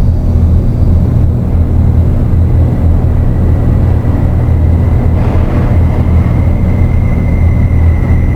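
Dark ambient drone music: a loud, steady low drone under a noisy haze, swelling briefly about five seconds in, with a thin high tone fading in near the end.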